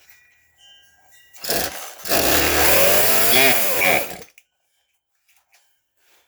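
Poulan two-stroke chainsaw being pull-started: a short pull, then the engine fires and runs for about two seconds at unsteady speed before cutting out suddenly.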